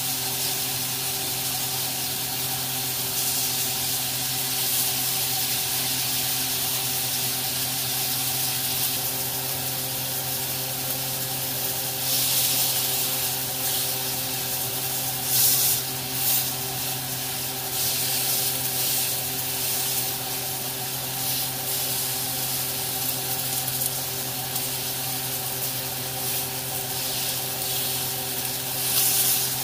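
New York strip steaks sizzling steadily in a hot ridged grill pan, with louder surges of sizzle around twelve to sixteen seconds in as the steaks are turned with tongs. A steady low hum runs underneath.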